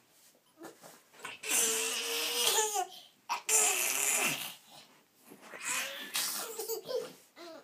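A baby babbling and laughing in three breathy, high-pitched bursts with short pauses between them.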